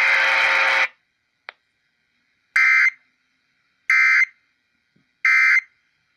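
NOAA Weather Radio EAS end-of-message signal: three short, identical buzzy SAME data bursts about 1.3 seconds apart, marking the end of the warning broadcast. Before them, a second of radio noise cuts off abruptly.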